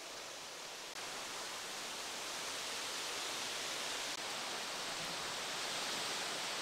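Steady rushing hiss of outdoor ambient noise, with no distinct events; its level shifts slightly about a second in and dips briefly near four seconds.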